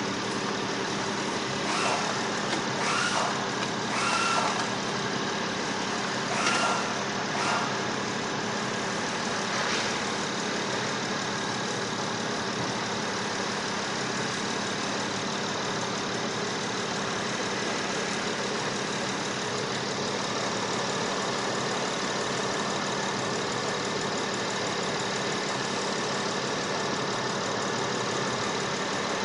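Engine idling steadily. Several short tones sound between about two and ten seconds in.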